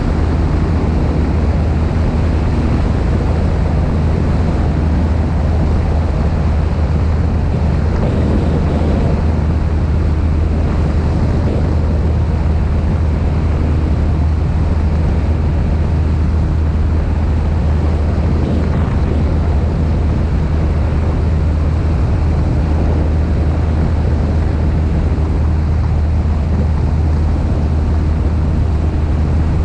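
Cessna 172's four-cylinder piston engine and propeller droning steadily in flight, with a strong rush of wind over the microphone.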